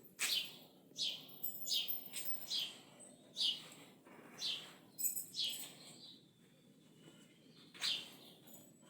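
Birds chirping: about ten short, sharp calls, each falling steeply in pitch, at irregular intervals, with a pause of about two seconds before a last call near the end.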